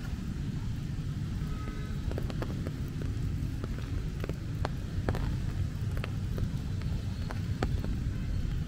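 Rain on an umbrella: scattered sharp drops tapping on the canopy, over a steady low rumble.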